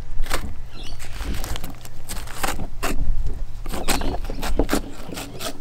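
Filleting knife working along a barramundi's rib bones, ticking and scraping over each bone in a run of irregular clicks, over a steady low hum.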